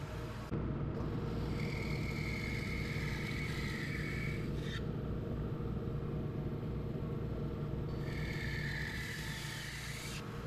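Power saw running steadily, with two stretches of a higher cutting tone as the blade goes through wood for the 45-degree cuts.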